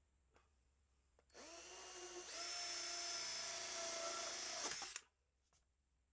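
DeWalt cordless drill spinning an inside PVC pipe cutter down in a 2-inch PVC drain pipe. The motor whine starts about a second in, steps up to a higher speed a second later, and stops abruptly about five seconds in.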